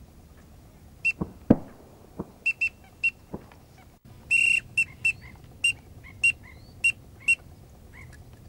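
A duck whistle call blown in a series of short, high toots, about ten in all, with one longer held note a little after four seconds in. A few sharp knocks about a second in, the loudest of them near a second and a half.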